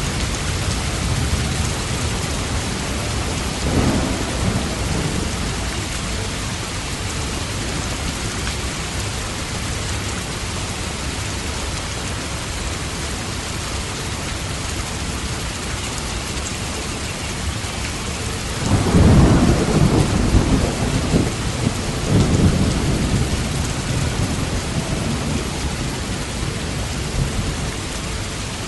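Steady rain falling, with thunder: a short rumble about four seconds in, then a longer, louder roll of thunder from about nineteen seconds that dies away over several seconds.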